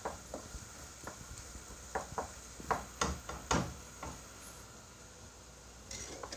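Wooden spatula stirring minced meat in a non-stick wok, irregular scraping clicks and knocks against the pan that stop about two-thirds of the way through, over a faint steady sizzle of the meat cooking.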